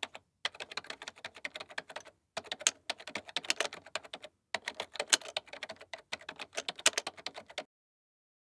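Computer-keyboard typing sound effect: rapid key clicks in four runs with short pauses between, matching title text being typed out on screen.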